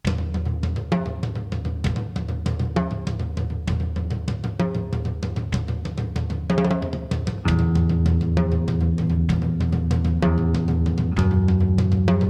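Band music starting abruptly from silence: a drum kit with rapid bass drum, snare and cymbal hits over bass. It gets louder about seven and a half seconds in as sustained chords come in.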